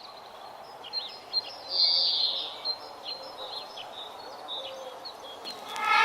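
Several birds calling with short high chirps and quick downward-sweeping notes over a steady background hiss, with a louder burst of song about two seconds in.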